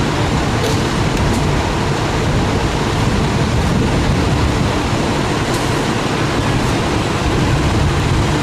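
Heavy fire engines' diesel engines running as a convoy approaches along a city street, with steady traffic noise; no siren is heard.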